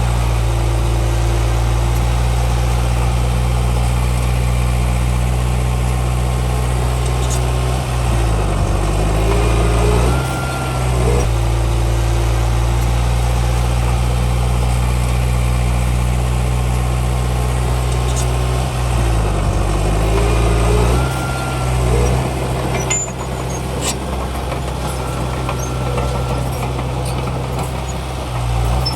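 Heavy diesel engine of earthmoving machinery running steadily. Its pitch dips and rises back twice, about eight seconds in and again about nineteen seconds in, as the load on the machine changes.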